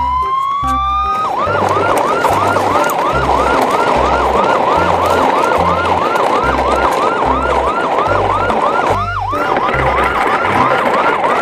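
Electronic yelp siren: a rising wind-up for about a second, then a fast rising-and-falling wail about three times a second. Underneath it are a steady rushing noise and a low repeating beat.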